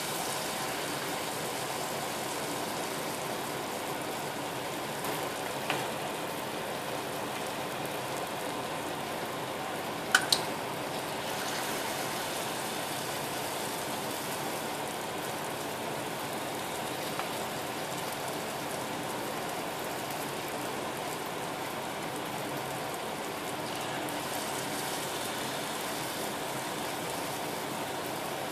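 Luqaimat dough balls deep-frying in hot oil in a small saucepan, a steady sizzle throughout. A metal spoon clicks against the pan a few times, sharpest as a quick double click about ten seconds in.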